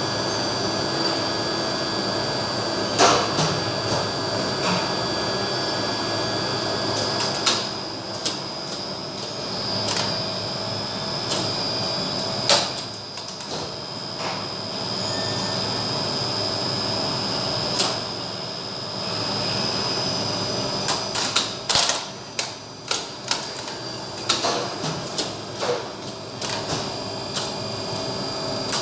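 Relays in a 1971 Flohr Otis relay-type 98 UCL lift controller clicking and clattering as they pick up and drop out, over a steady machine-room hum. The clicks come singly at first and crowd into quick clusters in the last several seconds.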